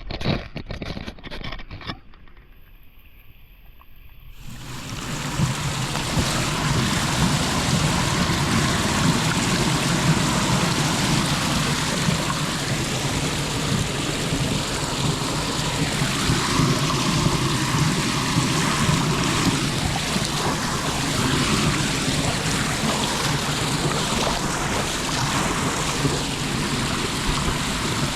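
Floodwater rushing down into a cleared street drain: a steady, loud rush of water that sets in about four seconds in and holds, after a few seconds of choppy, uneven noise.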